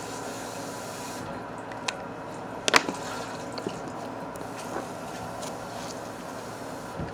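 Slime being handled in its container: a few small clicks and squishes, the loudest a sharp click or pop nearly three seconds in, over a steady background hum.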